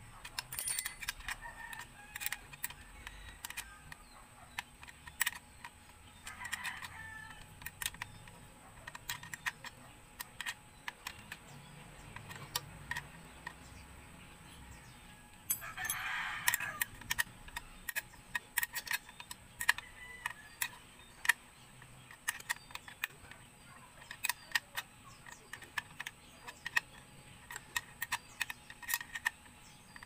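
Steel hand tools clicking and clinking irregularly against the metal of a motorcycle's shifter bracket and linkage as the bolts are worked with a wrench and tools are picked up from concrete. A rooster crows twice in the background, about six and sixteen seconds in, the second time louder.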